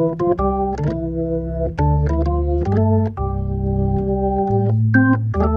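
Hammond B3 tonewheel organ playing a solo jazz waltz: held chords over a low bass line, changing about once a second, each new chord starting with a crisp key click.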